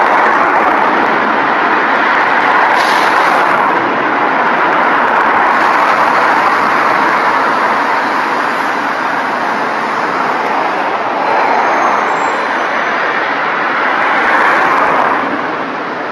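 Steady running of diesel bus engines with general traffic noise, easing off slightly near the end.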